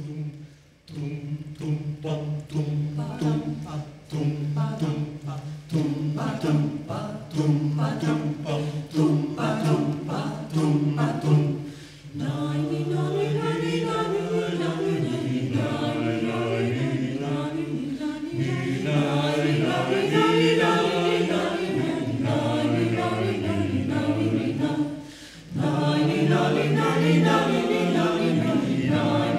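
Mixed choir of men's and women's voices singing a cappella. Over a held low note the voices sing a quick, rhythmic line for about the first twelve seconds, then the choir moves into full sustained chords, with a short break about 25 seconds in.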